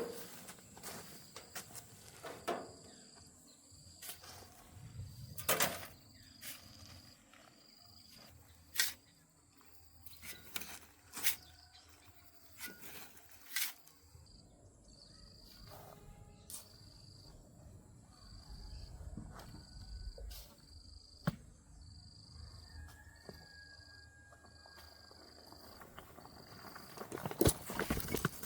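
Insect chirping outdoors in a steady series of short high notes, about one a second, over scattered sharp knocks and clatter of hand work with tools and materials.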